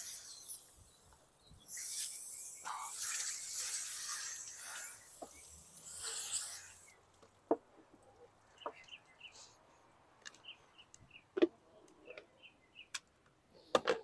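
Garden hose spray nozzle spraying water onto a fish fillet on a plastic cutting board: a hiss lasting about five seconds that cuts off suddenly. After that come a few sharp knocks and clicks, with a small bird chirping repeatedly.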